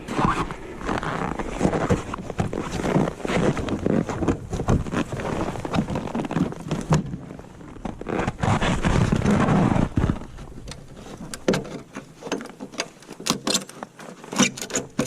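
Handling noise: irregular rustling and clattering, then a quicker run of sharp clicks and knocks in the last few seconds.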